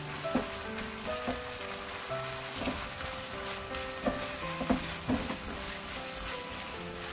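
Diced ham and vegetables in a red-pepper-paste sauce sizzling in a non-stick frying pan as a spatula stirs them, with several sharp taps and scrapes of the spatula against the pan. Background music plays throughout.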